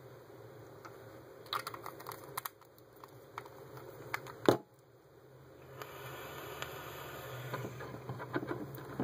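Metal parts of a mechanical vape mod clicking as they are handled, with one sharp click about halfway through. Then, from about six seconds in, a steady crackling hiss as the mod fires its atomizer coil and the e-juice sizzles on it during a draw.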